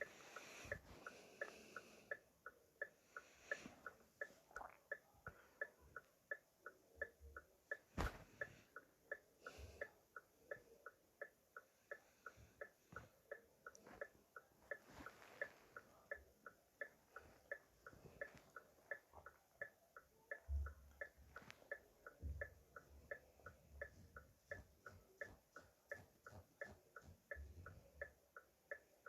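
Car hazard-light flasher ticking evenly, about three clicks a second in an alternating tick-tock, with one louder knock about eight seconds in.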